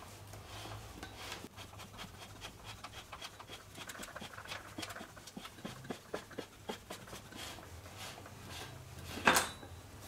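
Bottom bracket press being turned by hand to push a BB86 press-fit bottom bracket into a carbon frame's shell. It makes faint irregular clicks and rubbing, with a louder knock about nine seconds in.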